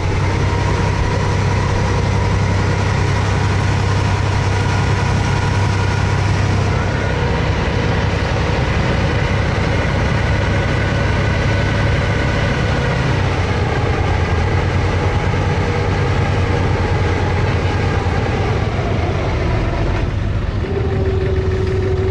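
A wooden abra water taxi's inboard diesel engine running steadily while the boat is under way, a constant low drone that settles slightly lower in pitch a little past halfway.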